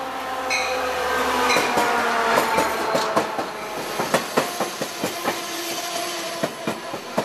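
Amtrak Pacific Surfliner passenger train pulling into the station behind an F59PHI diesel locomotive. The locomotive bell rings about once a second at the start and stops about a second and a half in, while the engine note falls in pitch as it passes. Then the cars' wheels clack over the rail joints as they roll by.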